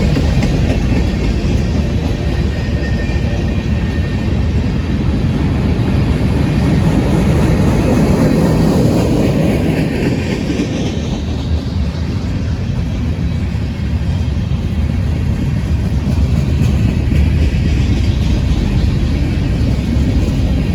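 A train rolling past at close range: a loud, steady rumble of wheels on rails that swells a little around the middle.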